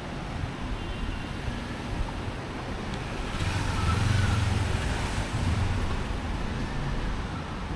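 Street traffic noise, with a motor vehicle passing close by: its engine rumble and tyre noise swell from about three seconds in and die away after about six seconds.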